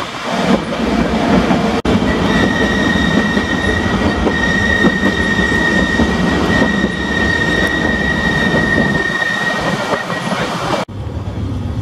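Manx Electric Railway car running along the track with a steady rumbling clatter. From about two seconds in until near the end, a steady high-pitched wheel squeal rides over it. Near the end the sound cuts abruptly to a lower, steadier rumble.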